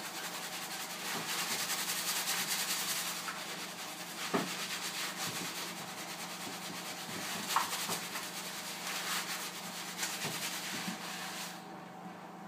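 Fingers scrubbing a shampoo-lathered scalp: fast, steady wet rubbing of foamy hair, over a low steady hum. A couple of brief knocks come in the middle, and the scrubbing fades out near the end.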